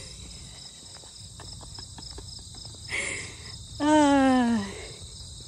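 Steady, pulsing trill of insects in tall grass, with faint crunching footsteps on a gravel path. Around four seconds in, a woman lets out a drawn-out vocal groan that falls in pitch, the loudest sound here.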